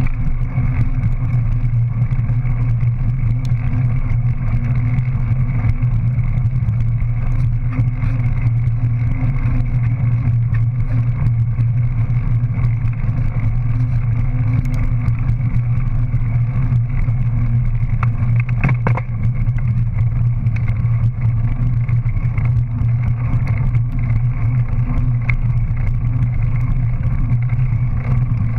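Steady low droning hum of a bike on the move, picked up by a camera mounted at its back, with a couple of faint clicks about two-thirds of the way through.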